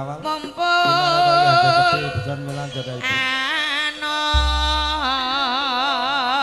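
Javanese gamelan music with a singer holding long notes with a wide, even vibrato. A deep gong stroke comes in about four seconds in and rings on.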